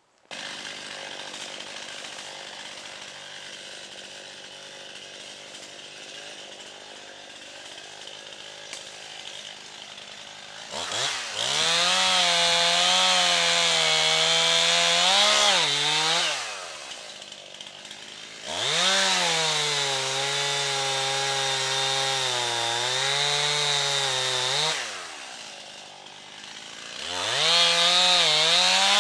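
Stihl MS291 two-stroke chainsaw running at idle, then revved up to full throttle three times, its pitch sagging and wavering as the chain bites into wood, dropping back to idle between cuts.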